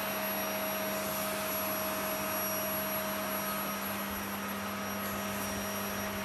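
Vacuum cleaner motor running steadily, a constant whir with a high whine over it.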